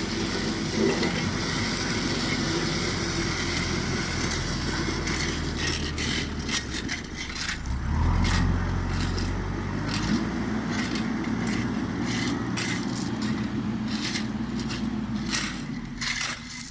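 The engine of heavy road-building machinery running steadily, with gravel crunching and crackling from about six seconds in; the engine grows louder about eight seconds in.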